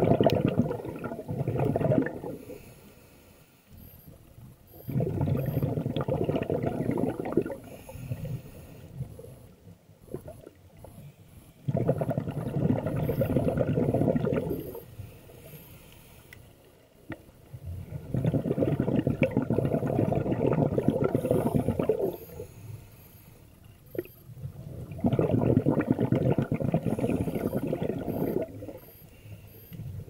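Scuba diver breathing underwater through a regulator: bursts of exhaled bubbles rising past the microphone, each lasting two to four seconds and coming about every six to seven seconds, with quieter gaps between breaths.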